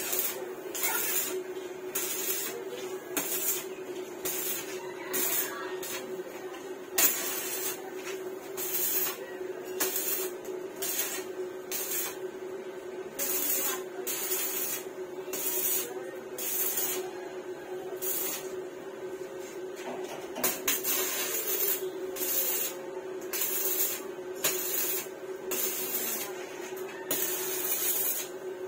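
Electric arc welding on a steel frame: the arc crackles and hisses in short bursts that keep stopping and restarting, with a steady low hum underneath.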